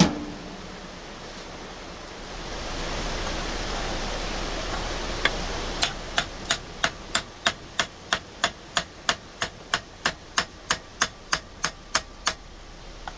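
A toaster oven door snaps shut with a sharp click, and a steady hiss swells for a few seconds. Then comes a run of about twenty light, sharp metal clicks, roughly three a second, at a bench vise gripping a forged steel knife blade.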